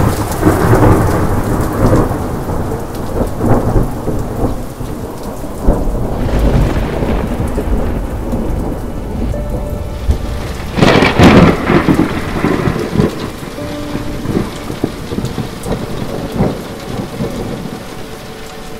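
Thunderstorm: rolling thunder rumbling over steady rain, with a sharp, loud thunderclap about eleven seconds in that rumbles away, and the storm growing quieter near the end.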